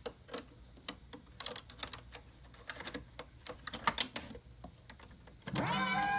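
A string of irregular light clicks and taps, like hands working small switches and buttons. About five and a half seconds in, music starts with a brief upward slide in pitch before settling.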